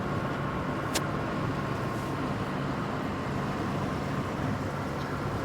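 An engine running steadily with a low, rough sound, described as "ngorok" (a snoring-like growl). A faint steady whine sits above it, and there is one sharp click about a second in.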